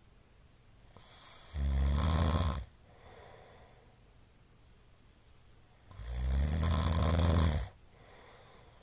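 A man snoring loudly in his sleep: two long, low, buzzing snores about four and a half seconds apart, with quiet breathing noise between them.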